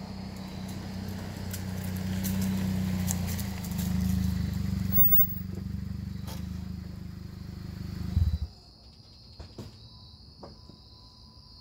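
2008 Jeep Patriot's four-cylinder engine with the muffler deleted, running with a deep, steady exhaust drone that swells as the car comes up close and idles. It is shut off about eight seconds in with a short thump and cuts out suddenly, leaving crickets chirping and a few faint clicks.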